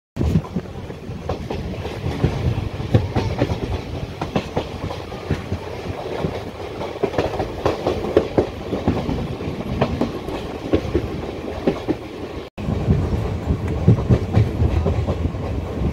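Indian Railways passenger coach running at speed, heard from its open window: a steady rumble with the wheels clattering irregularly over the rail joints. The sound drops out for an instant about twelve seconds in.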